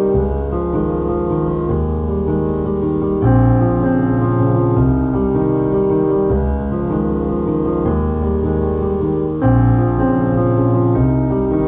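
Background piano music, slow held chords changing every few seconds.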